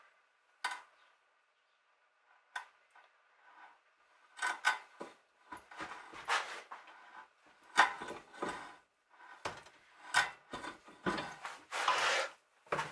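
Threading die in a hand die stock being turned on a steel rod held in a bench vise, cutting a thread for a keel bolt: scraping strokes and metallic clicks. A few isolated clicks at first, then from about four seconds in the strokes come quickly and are busiest near the end.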